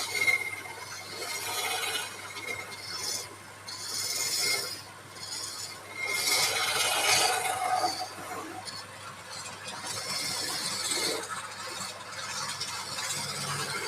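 Wood lathe running while a turning tool scrapes the spinning wood in uneven passes of a second or two, with short pauses between them, over the steady hum of the lathe.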